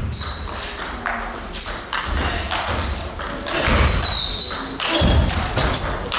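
A hall full of spectators suddenly breaks into loud shouting and cheering, mixed with claps and thumps.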